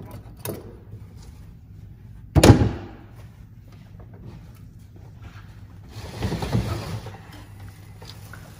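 A single heavy thud about two and a half seconds in, then a second or so of plastic rustling and wood scraping as a plastic-wrapped gearbox on a wooden pallet is handled in a car's load area.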